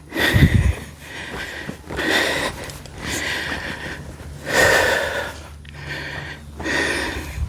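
A man breathing hard from the exertion of digging, a loud breath every second or so.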